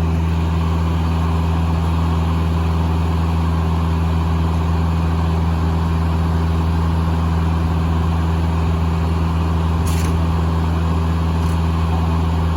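Engine powering a Foley Belsaw circular sawmill, running at a steady speed with an even low hum, and two faint clicks near the end.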